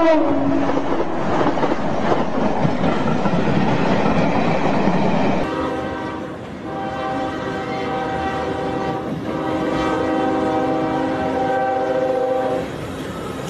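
A train passing close by with a loud, steady rush of noise. After about five seconds this gives way to a diesel freight locomotive's air horn sounding one long multi-tone chord for about six seconds as the locomotive approaches. The horn cuts off shortly before the end.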